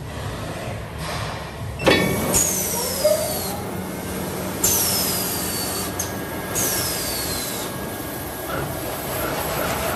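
A band saw toilet paper log cutting machine starts up about two seconds in with a knock and a rising motor whine. It then runs with a steady hum, and a falling high-pitched whine repeats every couple of seconds as it cycles.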